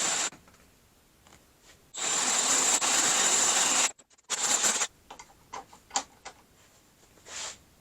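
Electric drill with a 1/2-inch bit boring out the clutch-arm pivot hole so a shouldered 1/2-inch bolt will fit: a short burst at the start, a steady run of about two seconds, and another short burst. A few light clicks of handling follow.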